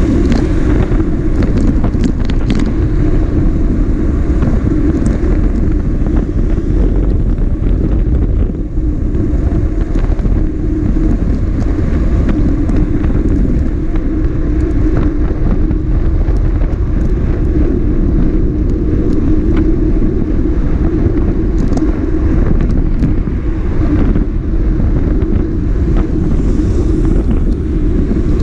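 Motorcycle running at a steady cruising speed, its engine note holding even with no revving, under heavy wind rumble on the microphone.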